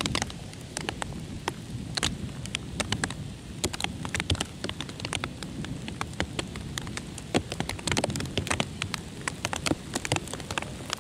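Downpour: many sharp, close raindrop hits, several a second, over a steady low rushing noise.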